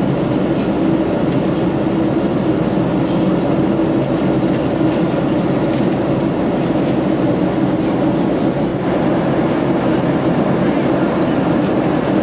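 Steady cabin noise inside a Boeing 767-300 in flight: the even rush of air over the fuselage and the drone of its Rolls-Royce RB211 engines, with a steady low hum.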